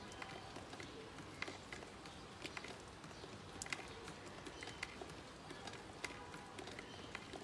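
Rain falling steadily on wet concrete and puddles, with scattered louder drips tapping irregularly close by.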